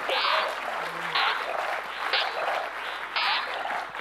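Audience applauding, over the electronic soundscape of The vOICe image-to-sound software, which repeats about once a second as it scans the scene.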